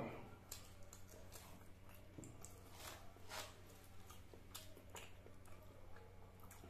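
Near silence with faint mouth clicks and smacks from a man chewing a mouthful of egg puff, scattered a few times over a low steady hum.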